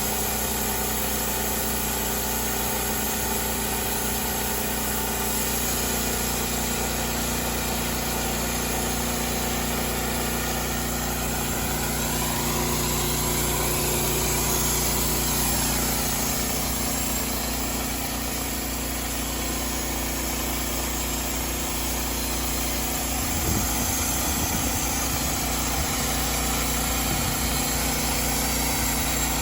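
Homemade sawmill's engine running steadily.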